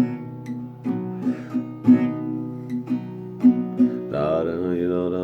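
Acoustic guitar strummed in a steady rhythm with sharp chord strokes. Near the end a man's voice comes in with a long held, wavering tone.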